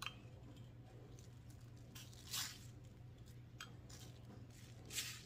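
Salt poured from a small bowl pattering onto a raw pork roast in a plastic slow-cooker liner: two brief soft hisses, one about two seconds in and one near the end, over a low steady hum.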